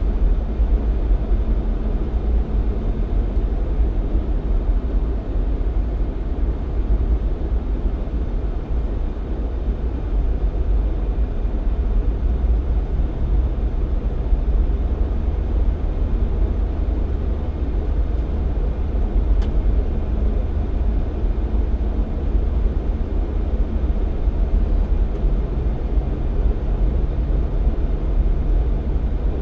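Jeep Cherokee XJ driving at a steady pace: a continuous low rumble of engine and tyre noise. A low engine note becomes more distinct near the end.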